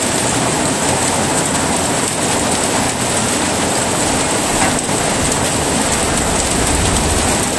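Steady heavy rainfall, an even hiss of many drops.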